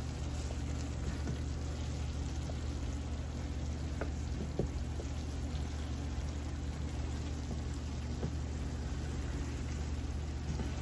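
Hamburger Helper simmering in a skillet while a wooden spatula stirs and scrapes through the thick sauce, with a couple of light clicks about four seconds in, over a steady low hum.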